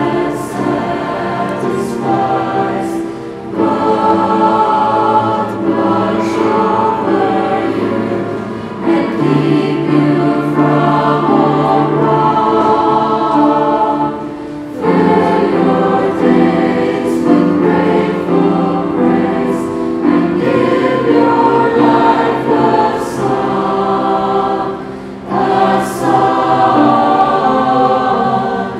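A choir singing a hymn in several parts: long sung phrases with short pauses between them, about four, fifteen and twenty-five seconds in.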